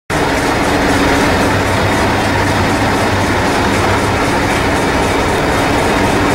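Engine of a Hastings diesel-electric multiple unit idling at the platform: a steady, even drone with a low hum.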